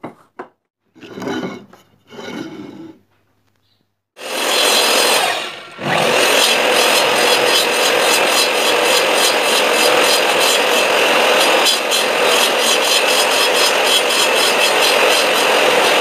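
Short rubbing and knocking sounds of wood being moved on the bench, then about four seconds in a miter saw starts and runs steadily, its blade cutting through an Australian oak board, with a brief dip in the sound near six seconds.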